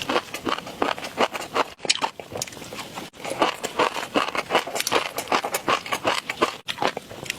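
Close-miked eating sounds: a dense run of rapid, sharp, wet clicks and crunches of chewing, broken by two brief dropouts where the clip is cut.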